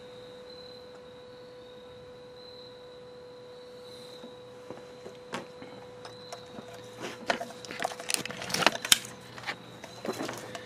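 Plastic wire loom rustling and knocking against the truck's metal as a wire run is fed down past the front of the truck, with scattered clicks that grow busier past the halfway point and are loudest near the end. A faint steady high tone hums underneath.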